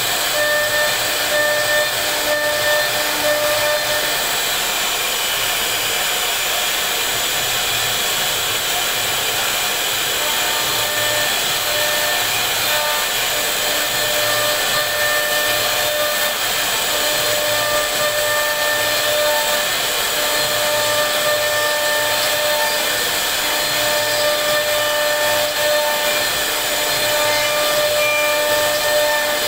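CNC router's high-speed spindle motor running while its carving bit cuts a relief pattern into a wooden panel: a steady hiss with a few whining tones that come and go as the bit moves.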